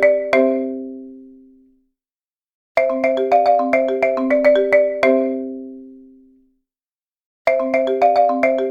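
Countdown-timer alarm ringtone: a short melody of quick marimba-like notes, each phrase ringing out and fading, then repeating after a brief pause about every five seconds.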